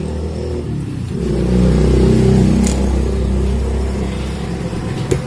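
A home theatre's subwoofer putting out a heavy, deep bass sound that swells about a second in, with two sharp clicks near the end.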